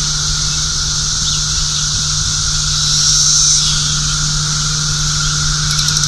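Chorus of Brood XIX 13-year periodical cicadas: a steady, loud drone of many insects singing at once, swelling briefly about halfway through, over a low steady hum.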